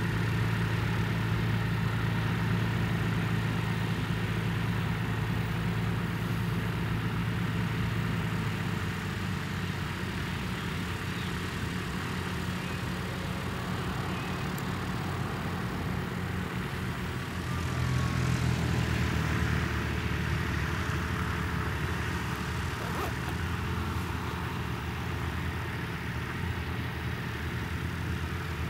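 Light propeller plane's piston engine droning steadily. It is loudest at the start, eases off, then swells again about two-thirds of the way through.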